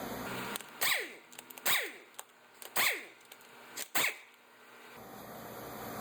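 Impact gun with a 19mm socket spinning off lug nuts in four quick bursts, each ending in a falling whine as the tool winds down.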